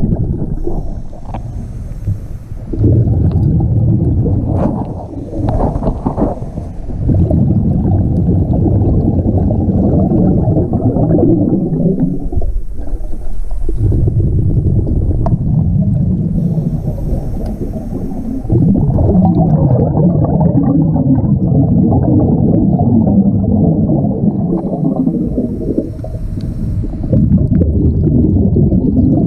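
Scuba diver breathing through a regulator underwater. A short hiss on each inhale is followed by a long, low rumble of exhaled bubbles, repeated several times with brief pauses.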